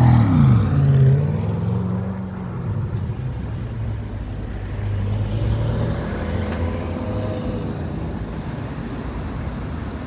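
Corvette C8's V8 pulling away, its engine note loud at first, then falling in pitch and fading over the first two seconds into a steady low rumble of engines and road noise.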